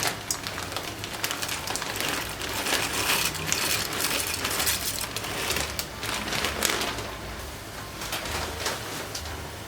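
Irregular clicks and clatter of small objects being handled, over a steady hiss.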